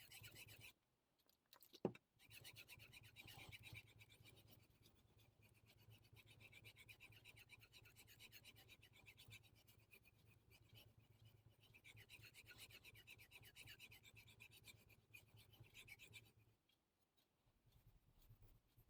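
Damascus-steel carving knife stroked back and forth over the 5000-grit side of a Naniwa combination whetstone, a soft, fast scraping that stops near the end. A sharp click comes just before the scraping starts, about two seconds in.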